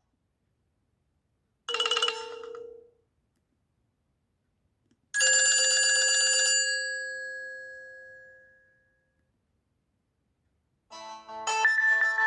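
Nokia C5-00 ringtones played one after another: a short electronic tone about two seconds in, then a bright chime about five seconds in whose notes ring out and fade over a few seconds. Near the end a busier tune of several notes begins.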